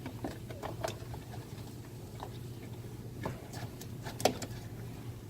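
Small plastic clicks and ticks from an HID fog light wiring connector being handled and turned over, with one sharper snap about four seconds in, over a steady low hum.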